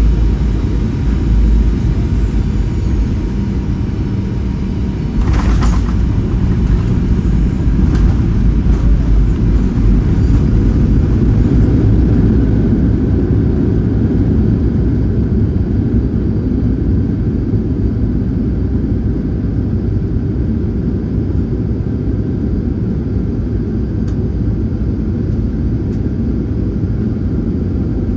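Cabin noise of a Qantas Boeing 737 just after landing: a loud, steady low rumble of engines and airframe with a faint whine, easing slightly toward the end, and a short sharper noise about five seconds in.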